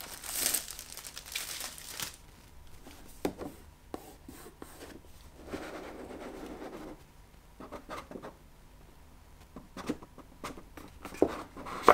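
Plastic shrink wrap being torn and crinkled off a cardboard box, loudest in the first two seconds. Then come rubbing and scattered light knocks as the bare box is handled on a wooden table.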